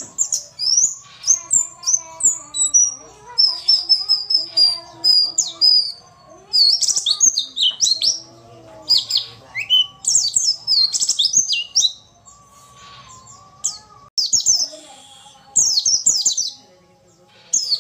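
Female white-eye (pleci) call: quick bursts of high, sweeping chirps and twittering notes, broken by a couple of short pauses. It is the call used as a lure to set male white-eyes answering and singing.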